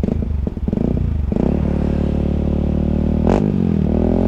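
Yamaha WR155R's single-cylinder engine idling through a Radamel F4-1 aftermarket exhaust, with some clattering in the first second or so and a short blip that lifts and drops the engine note a little over three seconds in.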